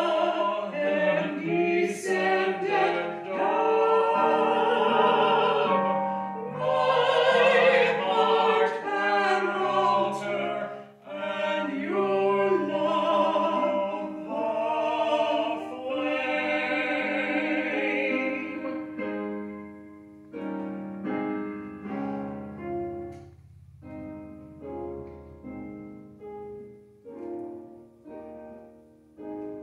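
A woman and a man singing a hymn together with piano accompaniment. The singing stops about two-thirds of the way through, and the piano plays on alone in separate notes that die away, growing fainter to the end.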